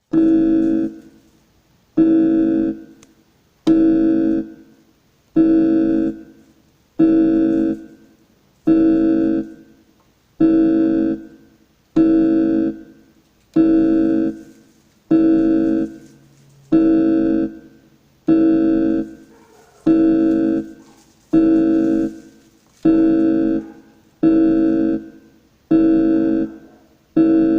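Beating-heart sound effect made of a single pitched, keyboard-like note, one stroke per beat at a slow steady pulse of about one every 1.7 seconds, each fading out within about a second.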